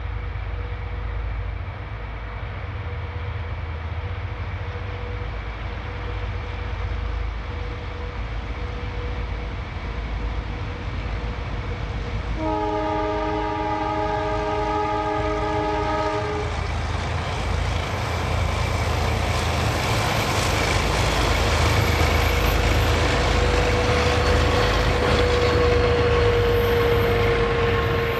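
Diesel freight locomotives approaching with their engines running, then a multi-note horn chord sounding for about four seconds midway. The wagons then roll past with growing wheel noise, and a steady wheel squeal builds near the end.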